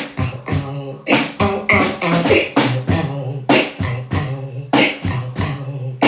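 Human beatboxing: a rhythmic string of sharp mouth-percussion hits with a low hummed tone sounding between them.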